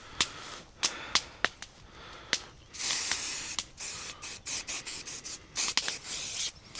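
Aerosol can of insect repellent sprayed in several hissing bursts: a long one about three seconds in and another near the end, with short sharp clicks before them.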